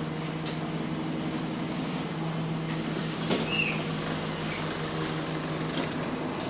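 Alexander Dennis MMC bus engine running steadily, a low hum with a high turbo whine over it. A brief squeak comes about three and a half seconds in.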